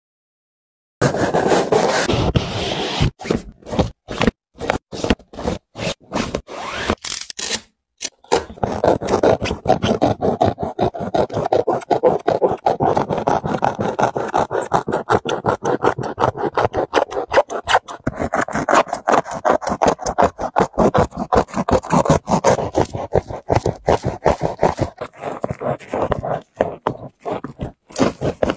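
Snap-off utility knife blade cutting along the seam between a Nike Zoom GT Cut 2 basketball shoe's knit upper and its foam midsole: rapid short scraping strokes, starting about a second in, with a couple of brief pauses.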